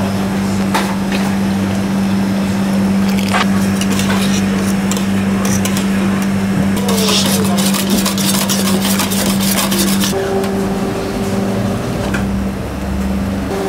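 A wire balloon whisk scraping and rattling against the sides of a stainless steel saucepan as thick custard is whisked, with a dense run of quick scrapes near the middle. A steady low hum runs underneath.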